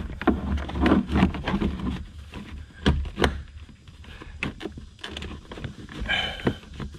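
Plastic car footwell trim panel being pushed and worked into place by hand: a string of knocks and clicks with rubbing. There is a short scraping rustle about six seconds in.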